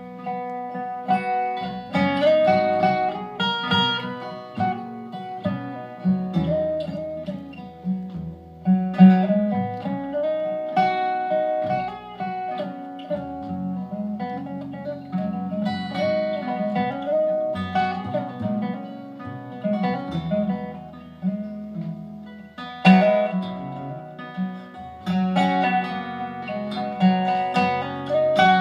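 Live acoustic band playing an instrumental break of the song, led by picked and strummed acoustic guitar over a low bass line, with no singing.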